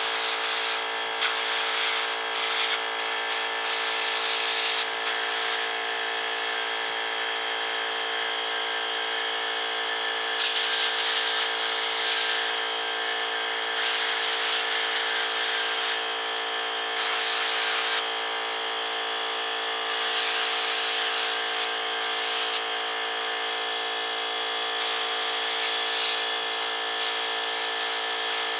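Central Pneumatic 21-gallon, 2.5 HP cast-iron vertical air compressor running with a steady hum, while an air-fed sandblaster hisses in repeated bursts of one to two seconds with short pauses between them.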